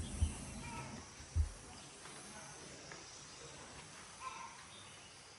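Quiet background hiss with a few faint high chirps, and a single short low thump about a second and a half in.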